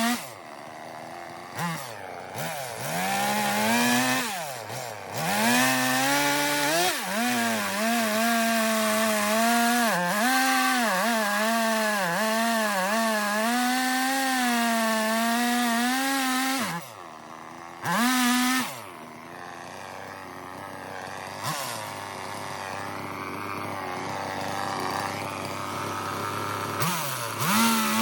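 Gas chainsaw cutting into a cedar log, its engine pitch wavering as the chain bogs and picks up in the wood, with brief drops to idle about a second in and near five seconds. After a short rev it settles into a lower, quieter idle for several seconds, then revs up again near the end.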